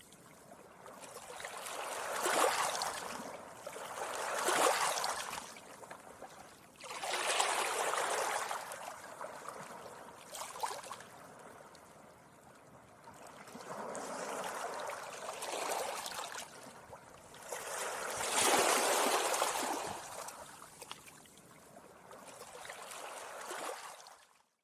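Gentle sea waves washing up a beach, each wave a hissing surge that swells and fades every two to four seconds. The sound cuts off suddenly at the very end.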